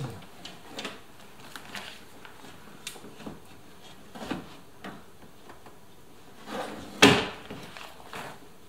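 Hands working inside a Toyota RAV4's door with the trim panel off: scattered small clicks and knocks, and one louder, sharp knock about seven seconds in as the loose door trim panel is brought up against the door.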